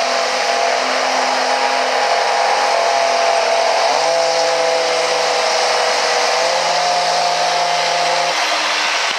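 Dodge Ram's turbo-diesel engine running flat out as the pickup drags a weight-transfer pulling sled, with a loud steady engine noise and a high whine over it that shifts pitch about four seconds in and again a couple of seconds later.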